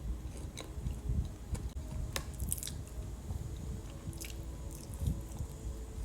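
Close-up biting and chewing of a cold Dubai chocolate cookie, with scattered crisp crunches.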